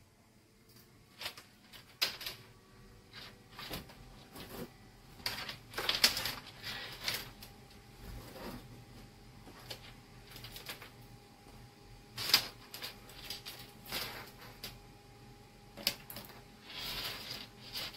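Wires and alligator-clip test leads being handled on a workbench: irregular clicks, taps and rustles, with a few louder clacks.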